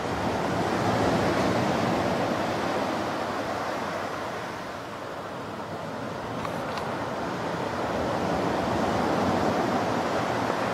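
Ocean surf breaking and washing up a sandy beach. It is a steady wash of noise that swells twice as waves come in, easing off in between.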